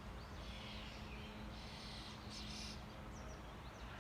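Songbirds chirping and singing in short phrases, over a faint steady low hum and outdoor background noise.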